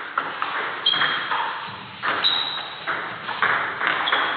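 Table tennis ball being hit back and forth in a rally: a quick, irregular run of sharp clicks off the bats and the table, a few of them with a short, high ping.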